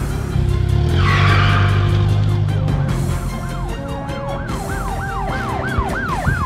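A car's tyres screech briefly about a second in, over a low hum. Then a police siren wails up and down, each sweep coming quicker and louder toward the end.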